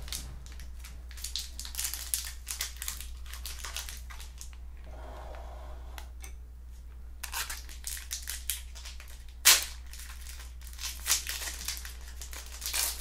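A trading-card pack wrapper crinkling as it is handled, in two stretches of dense crackling with a pause of a couple of seconds about five seconds in, and a sharper crack about nine and a half seconds in.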